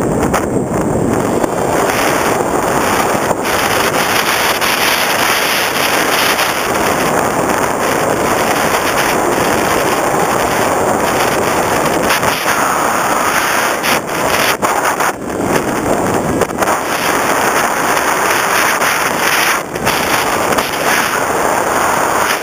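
Loud, steady wind rushing over the microphone of an onboard camera on an FPV Raptor model plane in flight, dipping briefly a few times.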